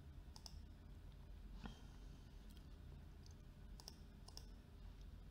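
About five faint, scattered computer mouse clicks over a low steady hum, in near silence.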